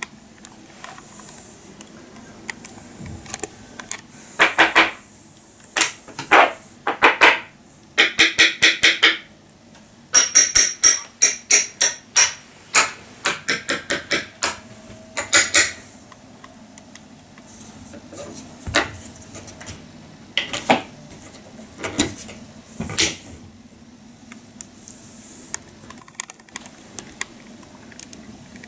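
A folding aluminium camping table being handled and its legs worked: a series of loud rasping bursts, some in quick runs of several, then four separate sharp knocks near the end.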